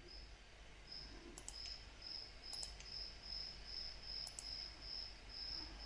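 Faint computer-mouse clicks, mostly in pairs, over a faint, even, high-pitched chirping that repeats about three times a second from about a second and a half in.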